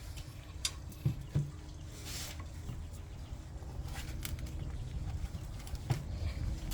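Light scraping and a few soft clicks of a rubber spatula working peanut butter out of a plastic jar, over a steady low rumble of wind on the microphone.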